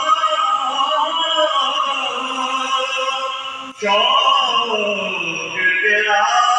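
A solo male voice sings a naat, an Urdu devotional poem, unaccompanied, in long ornamented held notes with a brief break about halfway through.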